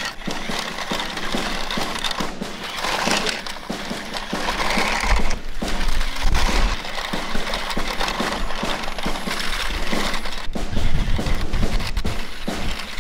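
Remote-control six-wheeled army truck driving over loose dirt and grass: a steady crunching and rattling of tyres and plastic body, with an uneven low rumble underneath.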